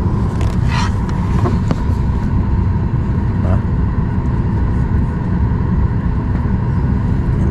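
Steady low rumble inside a jet airliner's cabin as it starts moving back from the gate, with a thin steady whine running over it.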